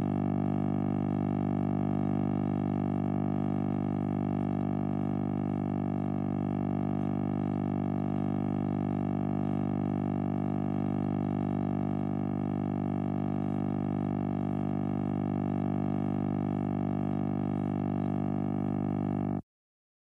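British telephone dial tone: a continuous, unbroken low hum from the line, steady throughout, that cuts off suddenly about a second before the end.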